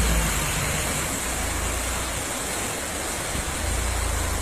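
Steady rushing of a river in flood, with a low rumble underneath.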